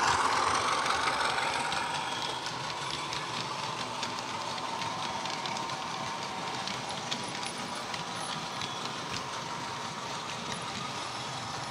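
Recorded Class 33 diesel engine sound (Sulzer engine) from a DCC sound decoder speaker in an OO gauge Heljan model, fading as the locomotive passes and moves away. Small irregular clicks follow as the model wagons roll by on the track.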